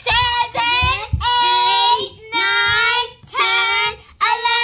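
A child singing in a high voice: a run of long held notes with short breaths between them.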